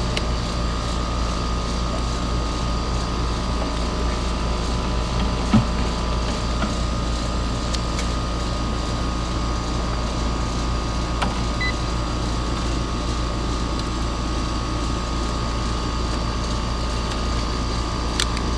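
Steady machinery hum with a deep rumble and a constant whine, and a few sharp clicks, one about five seconds in and another near the end.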